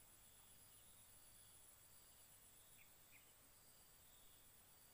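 Near silence with a faint, steady high-pitched insect drone, slightly pulsing, and two short faint chirps about three seconds in.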